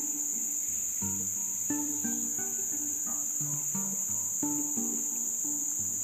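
A steady, high-pitched insect chorus shrilling without pause, over background music of short plucked notes.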